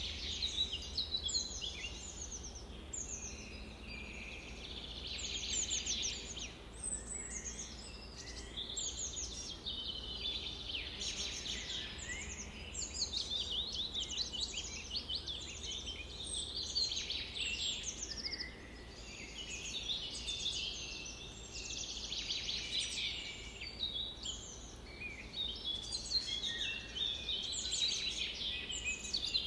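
Many songbirds chirping and trilling at once in a dense, unbroken chorus of short, high, overlapping calls, over a steady low rumble.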